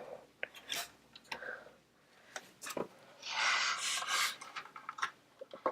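Remington Portable No. 2 typewriter's mechanism being worked by hand to raise its folded type bars into typing position: scattered small clicks, with a longer scraping rub about three seconds in.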